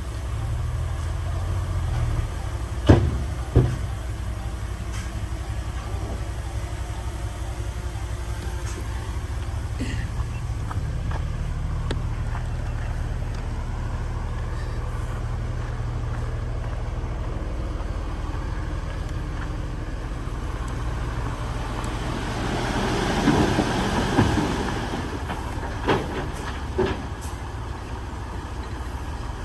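A heavy diesel engine of earthmoving machinery running steadily. Two sharp metallic knocks come about three seconds in and two more near the end, and a loud rushing noise swells and fades a little before them.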